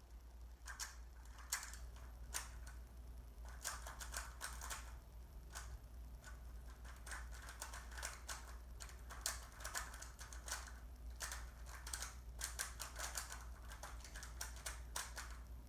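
Rubik's cube being turned fast in a timed speed solve: rapid, irregular plastic clicks and clacks of the layers turning, coming in quick flurries.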